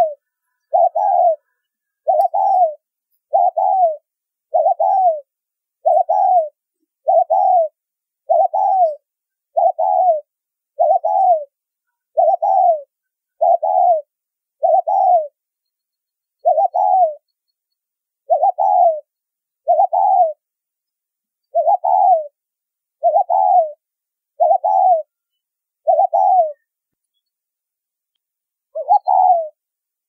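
Spotted dove cooing in a clear, whistle-like tone. Short coos come in quick succession about once a second, in the rapid, urgent calling style that Vietnamese dove keepers call thúc bổi. There is a brief pause about halfway through and a longer pause of about two seconds near the end.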